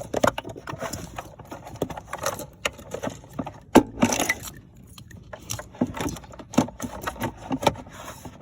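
Irregular plastic clicks, knocks and scraping as a car's interior fuse panel is worked back into its mount and its connectors are seated.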